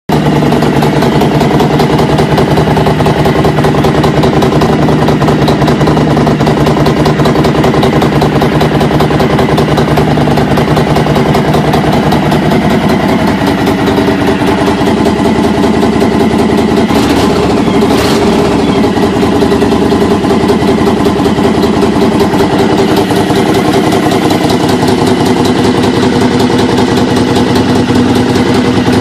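2005 Honda VTX 1300's V-twin engine idling steadily as it warms up from a cold winter start. One short click comes about two-thirds of the way through.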